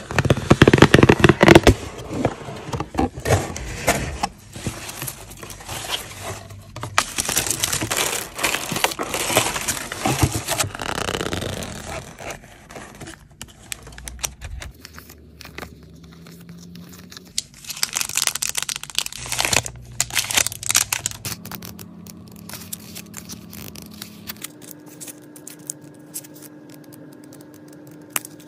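Honeycomb paper packing wrap crinkling and rustling as it is handled and pulled apart, loudest through the first twelve seconds and again about eighteen to twenty-one seconds in. In between and near the end, quieter rustling and flicking of paper sticker sheets.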